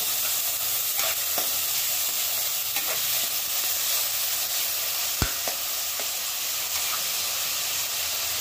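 Chopped onion and tomato sizzling in hot oil in a non-stick kadhai, stirred with a spatula that scrapes the pan now and then. One sharp knock about five seconds in.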